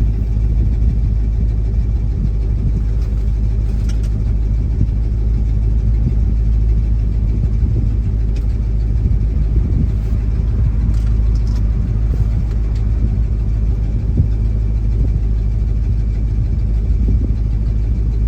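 Grain truck's engine running steadily with a low, even rumble.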